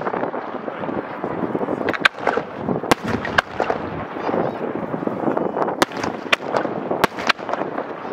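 Professional fireworks display: a string of sharp bangs and cracks from bursting shells, scattered through the middle and later part, over a continuous wash of noise.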